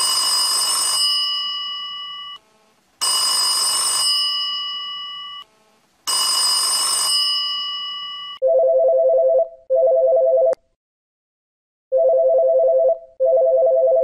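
An old telephone's mechanical bell rings three times, about three seconds apart, each ring fading away after about a second of ringing. From about eight seconds in, an electronic telephone ringer takes over with a steady two-tone warble in a double-ring pattern, two pairs of short bursts.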